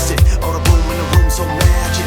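Upbeat electronic dance-pop song: steady four-on-the-floor kick drum at about two beats a second, with bass and synth melody.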